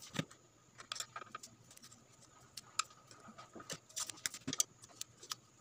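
Faint handling noise: scattered small clicks, taps and rustles as wires are twisted and pushed into place inside a plastic speaker cabinet.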